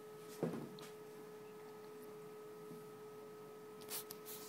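A steady electrical hum with a fainter higher whine above it. There is a brief sound about half a second in and a few sharp clicks around four seconds in.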